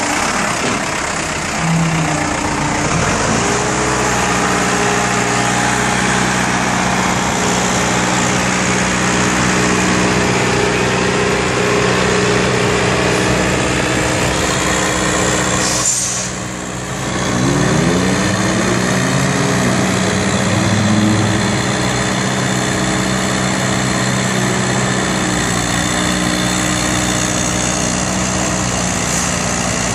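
Carelift Zoom Boom 10056 telehandler's turbo diesel engine running steadily, its pitch rising and falling a few times as it revs while the boom is worked. The sound briefly dips about halfway through.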